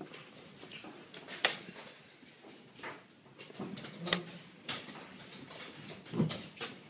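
Sharp clicks of chess pieces set down on the board and the chess clock being pressed during blitz play: a handful of irregularly spaced strikes, the loudest about a second and a half in.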